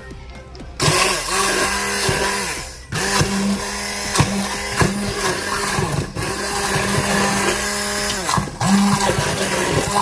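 Handheld immersion blender running in bursts, blending a tomato sauce with cubes of butter. The motor starts about a second in and stops briefly three times before starting again.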